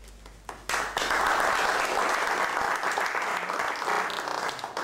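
Audience applauding: a few scattered claps, then full clapping that breaks out sharply under a second in and runs steadily.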